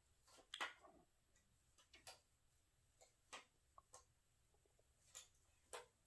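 Faint, irregular light clicks and taps of small parts being handled and fitted together during assembly, the sharpest about half a second in.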